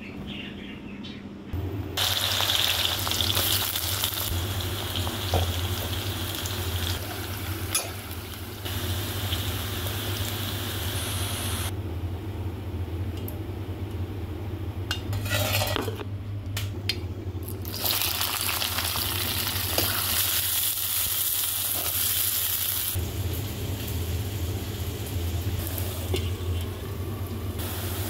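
Vegetables (sliced onions and bitter gourd) sizzling in hot oil in a wok, with stirring from a slotted spatula. The sizzle starts about a second and a half in and changes abruptly a few times, with a steady low hum underneath.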